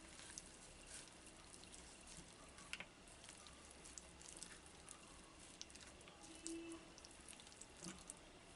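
Near silence, with faint wet squelches and small clicks of a hand working a bunch of coriander leaves through thick gram-flour batter in a plastic bowl.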